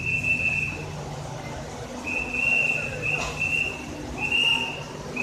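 A whistle blown in about five short blasts of one steady high pitch, each under a second, over the low steady rumble of LHB passenger coaches rolling past along the platform.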